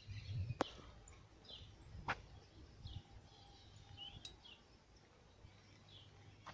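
Faint outdoor ambience with small birds chirping: short calls about once a second. A few sharp clicks, the loudest about half a second and two seconds in, stand out over a low rumble.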